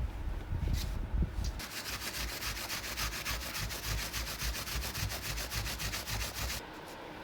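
Aerosol paint can being shaken hard, its mixing ball rattling in a fast, even rhythm that stops abruptly near the end.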